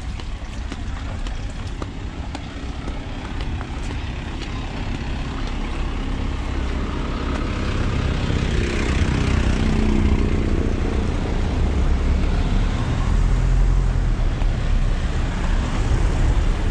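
Street traffic: motor vehicles running and passing on the road, with the engine noise growing louder through the middle and later part.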